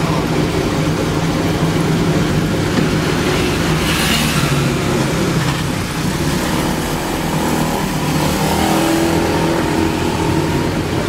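A steady mechanical hum and rumble, like motor traffic or a running engine.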